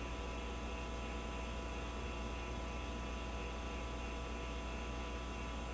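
Steady electrical mains hum with a stack of even overtones over a constant hiss, unchanging throughout.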